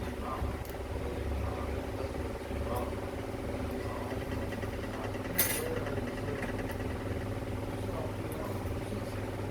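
Steady machine hum with one sharp click about five seconds in.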